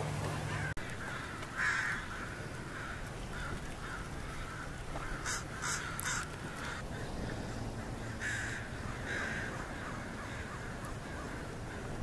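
American crows cawing, several harsh caws, the loudest about one and a half seconds in and more around eight to nine seconds in.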